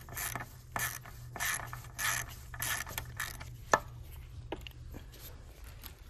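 Socket ratchet wrench clicking in a quick run of back-strokes, about one every half second, while a bolt is tightened with a 10mm socket. The strokes stop about three seconds in, followed by a single sharp click and a few light ones.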